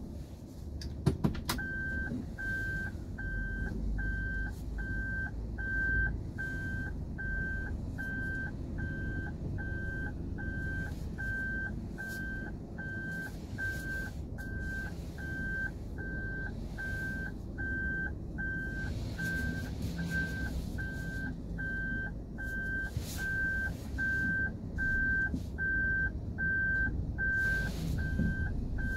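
Toyota Avanza's in-cabin reverse warning buzzer beeping at an even pace, about three beeps every two seconds, the sign that the car is in reverse, over the low hum of the car creeping along. A few sharp clicks come just before the beeping starts.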